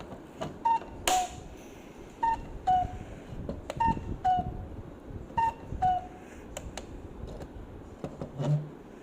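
Cuckoo clock calling the hour, a falling two-note 'cu-ckoo' repeated about every second and a half, four times, ending about six seconds in, with light mechanical clicks around it. This is the clock striking five just after its time was set.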